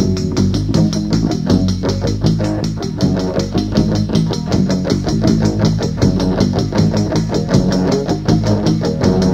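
Rock band playing a blues-rock song: electric guitar and bass over a drum kit keeping a steady, driving beat.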